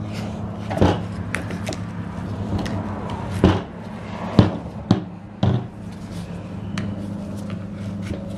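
Long metal pliers knocking and scraping inside a boiled goat skull as the nasal bones are worked loose and pulled out: several sharp clicks and knocks, the loudest about halfway through. A steady low hum runs underneath.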